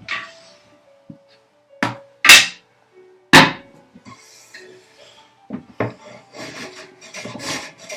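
Hand-tool strokes across wood, taking material off the box's edges to level two mating surfaces. A few loud, separate strokes come in the first half, the second about two seconds in the loudest, then a quicker run of lighter rasping strokes, about two a second, near the end.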